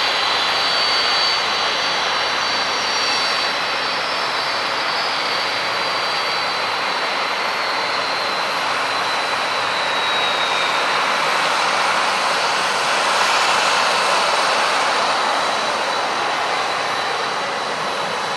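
Passenger airliner's engines running loudly, a steady roar with a high whine that glides slowly down in pitch.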